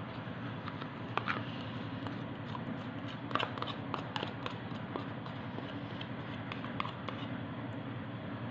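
Soft scattered clicks and taps of a spoon scraping melted margarine out of a plastic cup into a bowl of cake batter, over a steady low background hiss.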